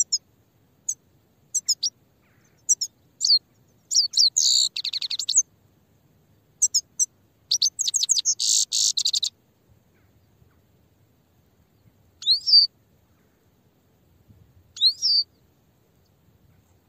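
Grey-headed goldfinch singing: a fast twittering song of high, quick notes broken by two buzzy trills, then after a pause two single upward-sweeping call notes.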